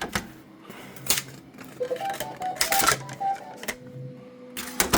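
Clicks and knocks of plastic and metal as a finished part is handled at a 3D printer. About two seconds in comes a short run of beeps at changing pitches. From near the four-second mark a steady low hum with a tone sets in.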